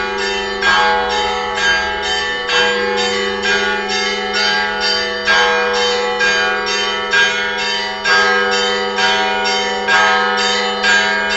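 Russian Orthodox church bells ringing: small bells struck in quick succession, about two to three strokes a second, over the steady hum of the larger bells.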